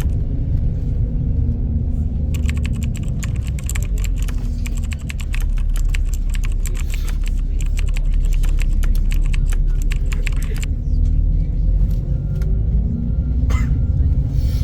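Steady low rumble with a dense run of small, rapid clicks from about two seconds in until about ten seconds in.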